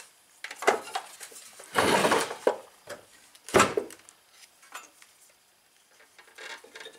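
Metal clatter from a small single-cylinder engine with its flywheel exposed being tipped over and shifted on a wooden workbench: a scraping clunk about two seconds in and a sharp knock about three and a half seconds in, with a few lighter clicks around them.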